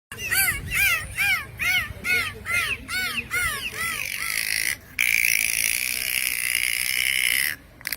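Dolphin calls: a quick series of short whistles that each rise and fall, a little over two a second, then a long steady squeal with a brief break that stops just before the end.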